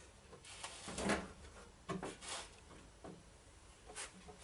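A few irregular wooden knocks and scrapes as the wooden crosscut sledge and saw parts are handled on the table saw, the loudest about a second in.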